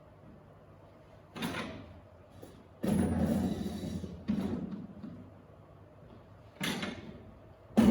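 Stacking chairs being handled and set down: four separate clattering knocks, the second one longer and louder.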